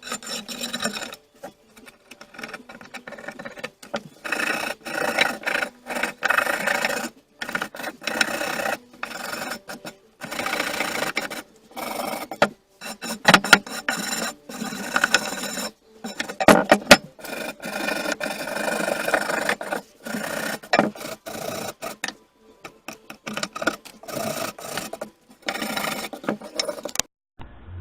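Repeated rasping, scraping strokes of hand work on the rusty bar clamp, in short runs separated by abrupt cuts.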